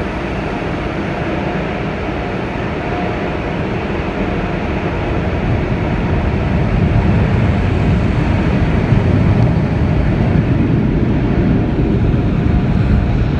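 Car wash air-dryer blowers blasting air over the car, heard from inside the cabin as a steady rushing noise that grows louder about halfway through as the car passes between them.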